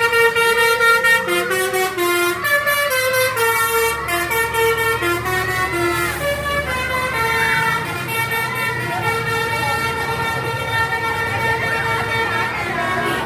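A tour bus's Basuri 'telolet' multi-tone air horn playing a tune of short stepped notes, moving to longer held notes after about five seconds. It sounds over the bus's running engine, with voices in the background.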